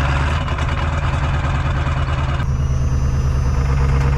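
Ford diesel pickup engine running at fast idle, pulling against the truck's frozen-in wheels as the clutch is let out, with a broad hiss that cuts off suddenly about halfway through.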